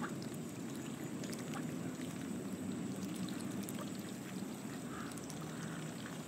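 Soft, steady splashing and trickling of water as mallard ducks dabble and dip their bills in the algae-covered shallows to feed, with small scattered drips and clicks.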